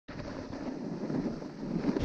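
Wind rushing over a body-mounted camera's microphone as a snowboard starts sliding down a snowy slope, the noise growing louder toward the end as the ride picks up speed.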